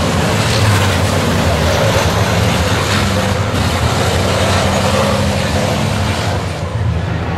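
Turbocharged diesel engines of several European racing trucks running hard through a corner, a loud, steady drone that eases slightly near the end.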